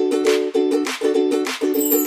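Background music of strummed string chords in a steady, bouncy rhythm, with a high chiming shimmer coming in near the end.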